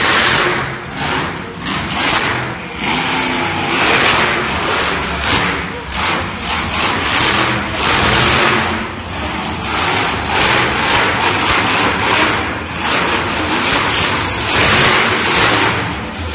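Northern Nightmare monster truck's engine revving hard, the loud sound surging up and down again and again as the truck drives its freestyle run.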